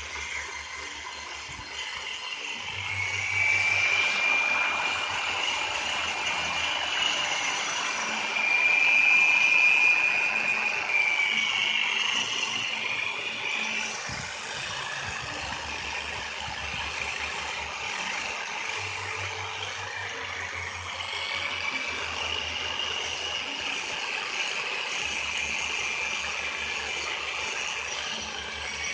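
High-speed rotary grinder whining as it grinds the ports of a Suzuki Tornado cylinder head. Its pitch wavers as the load changes, and it is loudest in the first half.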